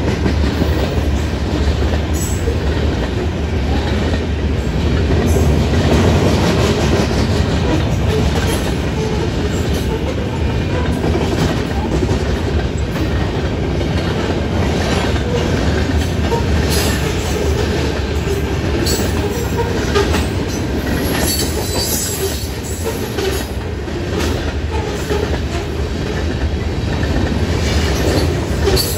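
Freight train of covered hopper cars rolling past: a steady rumble of steel wheels on the rails with repeated clicking over the joints, and a brief high wheel squeal about three-quarters of the way through.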